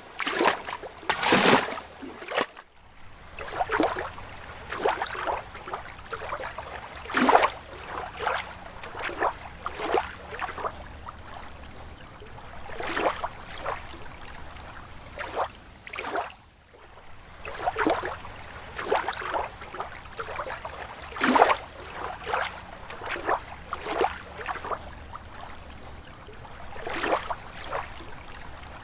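Lake water lapping in small irregular splashes, about one or two a second, over a low steady wash of water.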